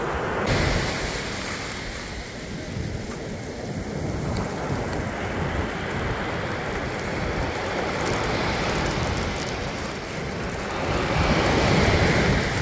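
Ocean surf washing on the beach, a steady rush that swells about a second in and again near the end, with wind rumble on the microphone.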